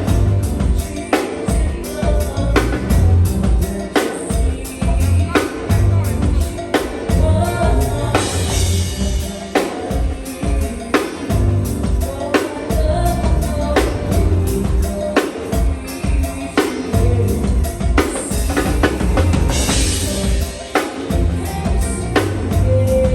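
Live band playing: a steady drum-kit beat over heavy bass, with singing, and cymbal washes about eight seconds in and again near the end.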